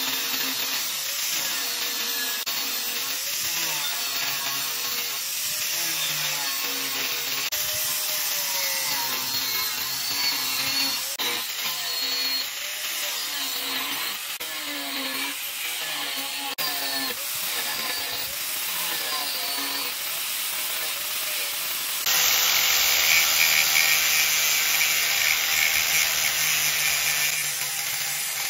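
Angle grinder grinding a steel leaf-spring knife blank, its motor pitch wavering as the disc bites and eases off. About three-quarters of the way through it changes suddenly to a louder, steadier grind with a flap disc.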